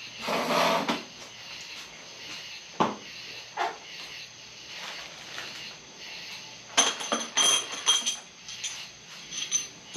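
Metal engine hardware clinking as it is handled, with a few sharp, ringing metallic clinks bunched together about seven seconds in. A brief scuffing noise comes near the start, and single knocks follow a few seconds in.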